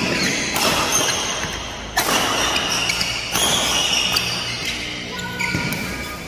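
Badminton rally: a shuttlecock struck sharply by rackets several times, a second or so apart, with rubber-soled shoes squeaking on the court mat between the hits.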